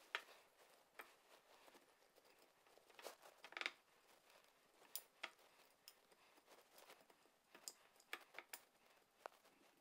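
Faint handling sounds: scattered light clicks and short rustles as hands push metal hooks through spice-coated beef strips on a ceramic plate, with a brief cluster of clicks a few seconds in.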